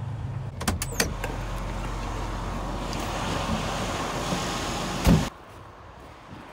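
Semi truck cab door opening with a few sharp clicks, the truck's engine running underneath, then the door slammed shut about five seconds in, cutting off most of the engine sound.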